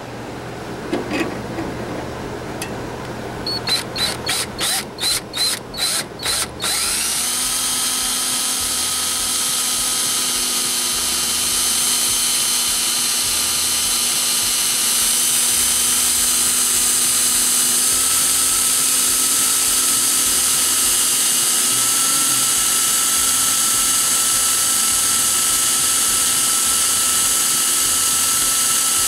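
Cordless drill boring holes in a sheet-metal box. About eight short trigger blips come a few seconds in, then the motor runs steadily as the bit cuts through the metal.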